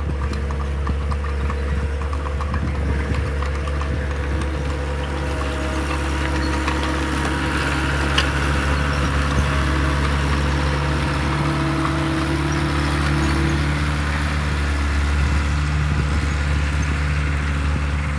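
Caterpillar skid steer's diesel engine running steadily.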